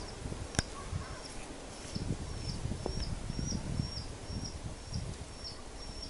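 A small bird calling over and over, a short high note about twice a second, with a low rustle underneath and a single sharp click about half a second in.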